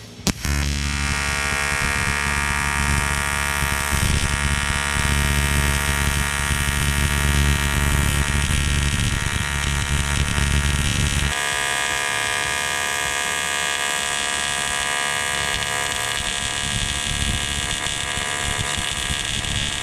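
AC TIG welding arc on 1/8-inch aluminium from a YesWelder TIG 250P, buzzing steadily at about 125 to 135 amps while filler rod is fed into the puddle. It strikes about half a second in, and its lowest part drops away about eleven seconds in.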